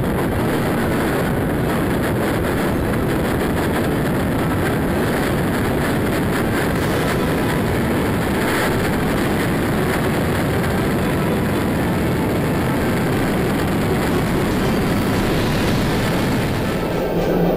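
Steady rushing noise of airflow and engine heard by a camera mounted on the outside of a HAL Tejas fighter jet in flight, wind pressing on the microphone at an even level throughout.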